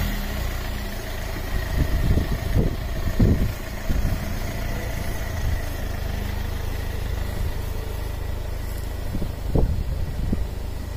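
Land Rover Freelander 1 Td4's 2.0-litre four-cylinder turbodiesel running at low revs as the car crawls slowly along, a steady low rumble. A few brief low thumps come about two to three seconds in and again near the end.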